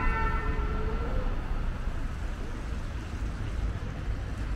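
Street traffic: a steady low rumble of passing vehicles. A pitched tone carried over from just before fades out in the first moment.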